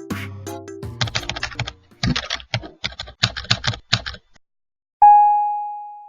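Rapid typing clicks for about three seconds, then a single bell ding that rings out for about a second. A bit of music ends at the start.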